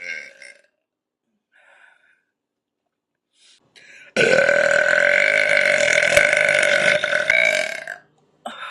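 A woman's long, loud burp, held for about four seconds at a steady pitch and starting about four seconds in, after the tail of an earlier burp at the start.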